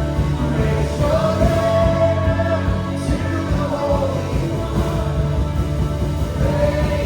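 Live worship band playing a rock-style congregational worship song, with singers holding long sung notes over the drums and instruments.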